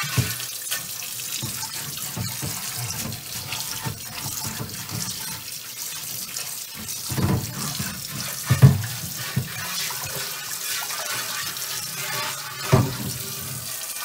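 Tap water running and splashing into a cast iron oval roaster in a stainless steel sink while a chain mail scrubber is rubbed over the pan's inside to scour off baked-on barbecue sauce. A few sharp knocks come through, about halfway in and again near the end.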